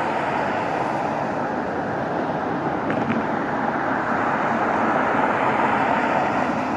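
Steady rushing noise of passing vehicles, swelling slightly about five seconds in.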